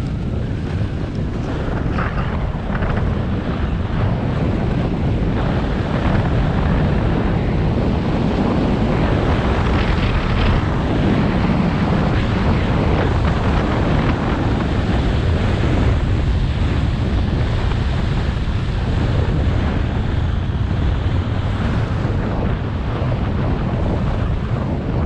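Wind buffeting a GoPro action camera's microphone on a fast ski descent, with the hiss of skis running over groomed snow. It builds a little over the first few seconds as the speed picks up, then holds steady.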